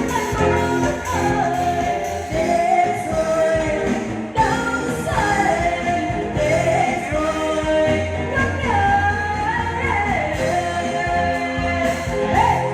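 Music: a singer's voice, with sliding pitch, over a band backing with a steady bass line.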